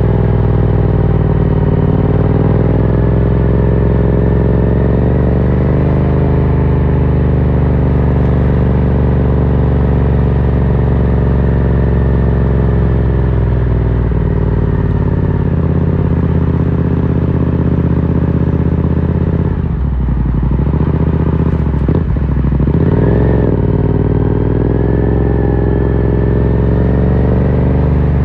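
Yamaha MT-07's 689 cc parallel-twin engine running through an Akrapovic carbon full exhaust while under way, its revs rising and falling gently. About twenty seconds in the pitch dips and wavers for a few seconds, then settles again.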